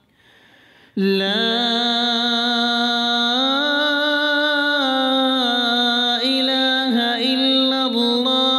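A single voice chanting Arabic zikr in a long, drawn-out melodic line, starting about a second in; the held note rises, then sinks back and wavers near the end.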